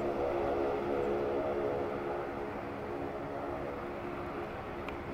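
ATR-42 twin-turboprop airliner on landing approach: its propellers give a steady drone with several held tones over a rushing noise, easing off slightly.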